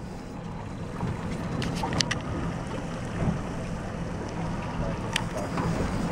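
Wind buffeting the microphone over the low, steady rumble of an idling outboard-powered boat and sea water against the hull, with a few short sharp clicks about two and five seconds in.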